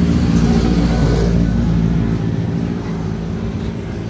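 Motorcycle engine running as the bike rides past close by. Its low, steady engine note is loudest over the first two seconds, then fades as it moves away.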